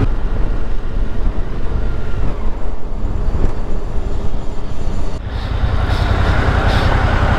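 Suzuki V-Strom motorcycle riding at low speed, engine running under a rumble of wind on the bike-mounted microphone. About five seconds in the sound dips briefly as the bike slows toward a stop.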